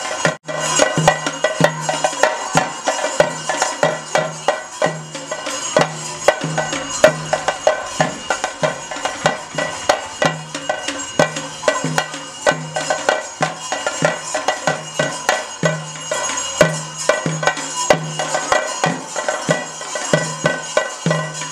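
Kerala temple percussion for a Theyyam dance: chenda drums played in dense, rapid strokes with ilathalam hand cymbals ringing, over a low drum beat about twice a second. The music breaks off for an instant about half a second in, then carries on.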